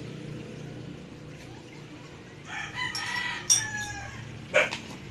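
A single drawn-out bird call, falling in pitch, starts about halfway through and lasts about a second and a half. A short, sharp sound follows near the end, over a low steady hum.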